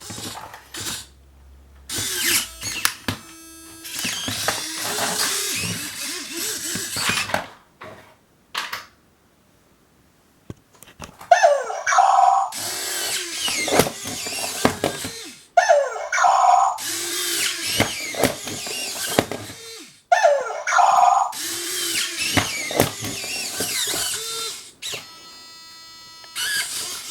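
Toy robot dog's small electric motors and plastic gears whirring in repeated spells of a few seconds each, with short electronic tones between some of them.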